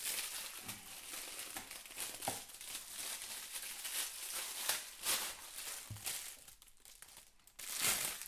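Thin clear plastic bag crinkling and rustling as a water bottle is pulled out of it. The crackle is irregular and ongoing, with its loudest burst near the end.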